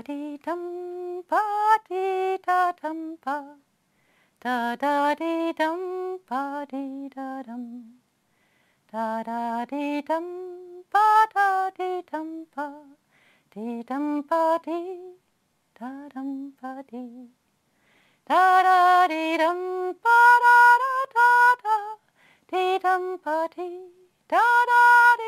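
A woman's voice singing an unaccompanied melody in short phrases with pauses between them, the last few phrases higher and louder.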